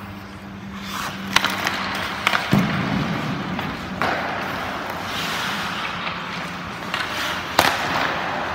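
Hockey skates scraping and carving on ice, with sharp clacks of sticks hitting pucks and pucks striking the goalie and net, the loudest a shot near the end. A steady low hum runs underneath for the first few seconds.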